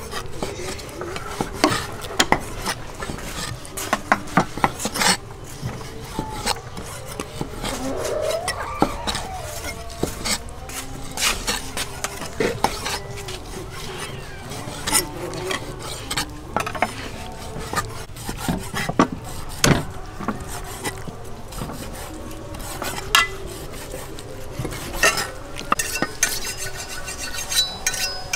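Cleavers slicing raw pork liver on wooden chopping boards: a steady run of irregular knocks as the blades strike the wood.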